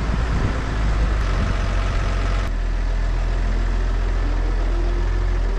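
Large diesel engine of farm machinery, a tractor or the grain header, running steadily, with a sudden change in the sound about two and a half seconds in.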